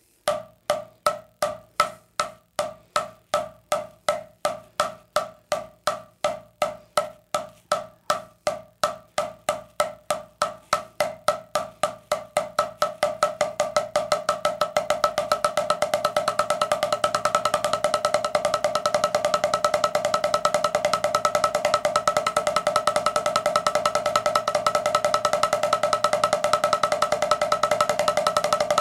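Wooden drumsticks playing paradiddles on a drum practice pad. The strokes start slow, about three a second, and speed up steadily until, from about halfway through, they blur into a fast, even roll.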